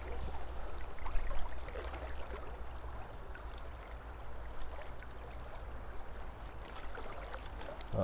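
Shallow river flowing and rippling around the wader, a steady rush of water with a low rumble beneath it.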